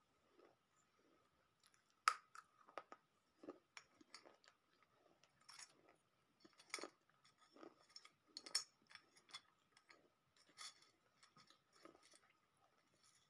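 Brittle pieces of baked clay being crunched and chewed close to the mouth: an irregular run of sharp, dry crackles and clicks, the loudest about two seconds in.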